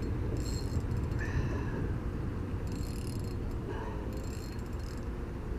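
Spinning reel ticking in three short bursts as the angler plays a hooked fish, over a steady low rumble.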